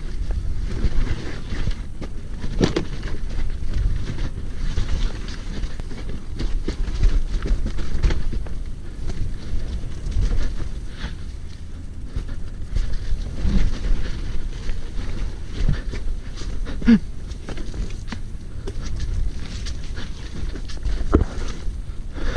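Wind buffeting an action camera's microphone as a hardtail mountain bike descends a muddy, rocky trail, a steady rumble broken by several sharp knocks and rattles from the bike hitting rough ground.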